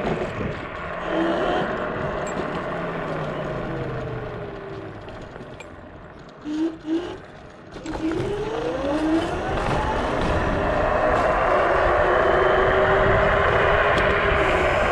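Dual Pro (Dragon Lightning V2) electric scooter's dual 1600 W hub motors whining as it is ridden, with wind rushing over the microphone. The whine falls in pitch as the scooter slows almost to a stop, goes quiet for a couple of seconds, then rises again as it accelerates. The wind noise is loudest near the end, at speed.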